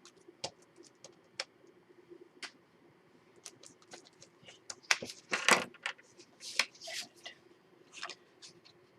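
Paper scraps and craft tools being handled and set down on a work table during a tidy-up: scattered light clicks and taps, with a louder paper rustle or scrape about five seconds in and a few more shortly after.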